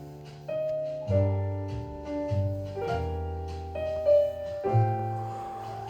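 Background piano music: held chords changing about once a second over low, sustained bass notes.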